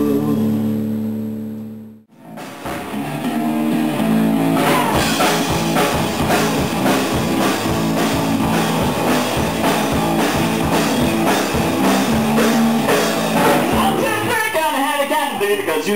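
Live amateur rock band on drums and guitars: a last held chord rings out and cuts off about two seconds in, then a new rock song starts with a steady drum beat and guitar, and a man's singing voice comes in near the end.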